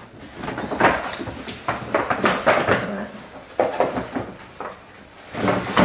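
Rustling, clicks and clatter of food packaging and containers being handled, as when rummaging for something among takeout boxes and bags; irregular bursts, busiest in the middle and again near the end.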